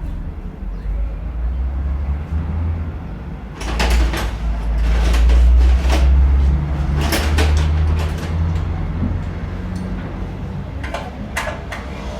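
A generator's engine running with a steady low hum, with a run of clattering knocks and clicks starting about three and a half seconds in, and a couple more near the end.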